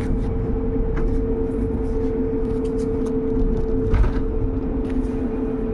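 Solaris Urbino 12 electric bus under way, heard on board: the electric drive gives a steady high whine with a lower hum over the rumble of the ride. A few short knocks or rattles come through, the loudest about four seconds in.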